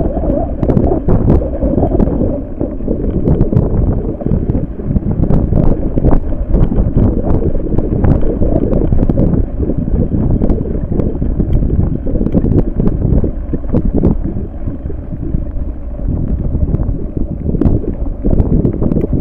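Heavy wind buffeting on the microphone: a loud, rough rumble throughout, broken by scattered sharp clicks and knocks.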